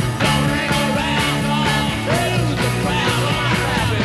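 Rock and roll song playing loud, with a steady drum beat under a bass line and pitched melodic lines gliding above.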